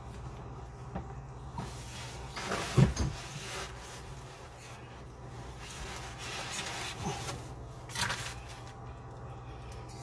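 Knocks and rubbing of hands and tools working on plumbing under a bathroom sink, with a sharp knock about three seconds in and another about eight seconds in.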